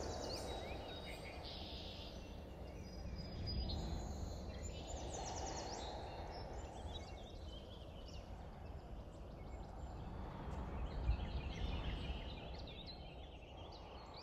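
Faint outdoor ambience: a steady low rush with scattered short, high bird calls, and a brief low bump about three-quarters of the way through.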